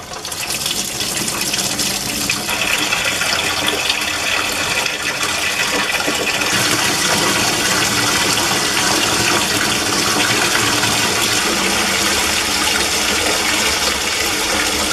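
A stream of water pouring into an empty concrete water tank, splashing steadily on its bottom as it starts to fill. The sound swells over the first couple of seconds, then holds.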